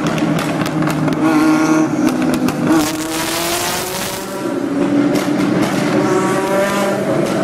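Ferrari F40's twin-turbo V8 revving hard in a tunnel, twice climbing in pitch, with a loud hissing rush between the two revs.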